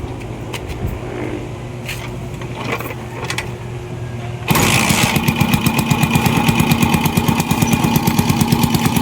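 A low steady hum with scattered clicks. About halfway through, a Honda TMX 155's single-cylinder four-stroke engine comes in suddenly, running with a fast even beat.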